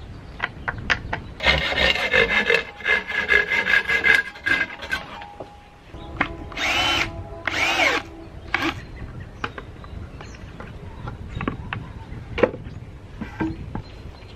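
Cordless drill driving screws into wooden boards: one run of a few seconds, then two short bursts whose motor whine rises and falls. Knocks and clatter of the boards being handled come in between.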